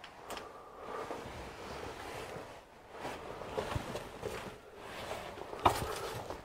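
Footsteps crunching over dry fallen leaves and forest debris, with one louder sharp crack near the end.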